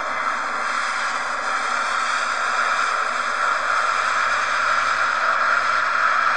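Jet airliner rolling out on the runway: a steady rushing noise that slowly grows louder.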